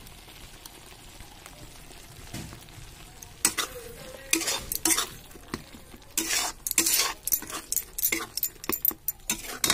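A metal spatula stirring and scraping thick masala in a kadai over a steady sizzle of the paste frying in oil, which has just begun to separate from the masala. The scrapes and clinks start about three and a half seconds in and come thick and irregular.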